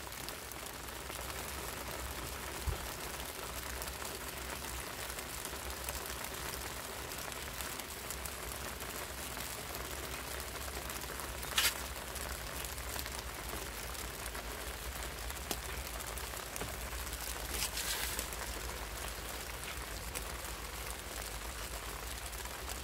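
Light rain falling, a steady even hiss. A sharp click comes about halfway through and a short rustle near the end.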